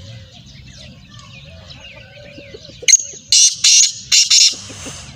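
Black francolin calling: one short note about three seconds in, then four loud, harsh rasping notes in quick succession.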